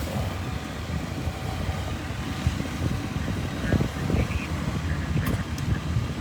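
Low rumble of fire engines running at a fire scene, with strong wind gusting against the microphone.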